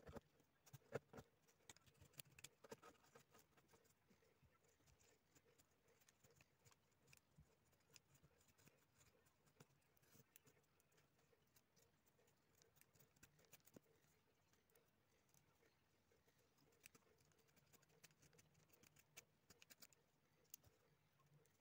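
Faint, scattered scratching and clicking of a small knife carving a wine cork and shaving wood, heard over near silence.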